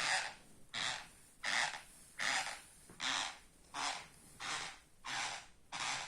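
Teeth grinding in sleep (bruxism), not snoring: a gritty rasp repeated about every three-quarters of a second, nine strokes in a row.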